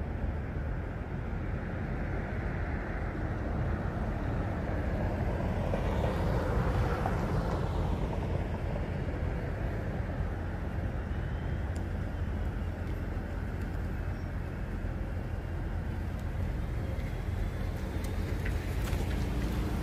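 Steady low traffic and outdoor street noise, with a passing car swelling up and fading away about six to eight seconds in.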